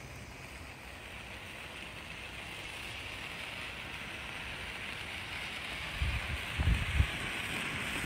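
Handheld 'Flamethrower' Bengal flame firework burning with a steady hiss that slowly grows louder. A few dull low thumps come about six to seven seconds in.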